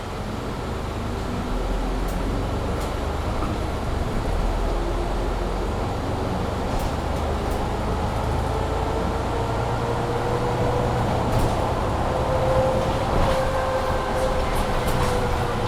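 Mercedes-Benz Citaro C2 G articulated bus with a Voith automatic gearbox, heard from inside while under way. The engine and drivetrain are pulling with a low rumble and a whine that slowly rises in pitch, then falls after about thirteen seconds, with light rattles.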